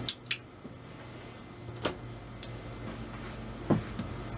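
Sharp clicks as an opened Agilent E3633A linear bench power supply is switched on: two close together at the start, then single clicks about two seconds in and near the end. A steady low hum runs underneath.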